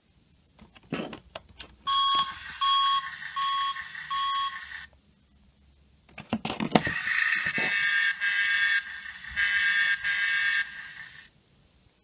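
Tonka push-button toy security truck's sound chip playing an electronic alarm effect through its small speaker: four evenly spaced beeps, then after the clicks and knocks of the button being pressed through the plastic packaging, a second, longer run of electronic alarm tones with two short breaks.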